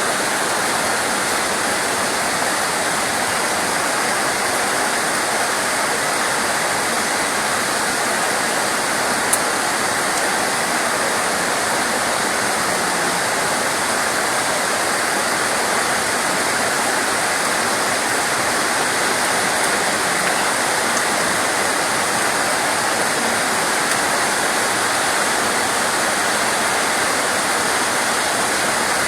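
Steady rain, an even, unbroken hiss with no single drops standing out.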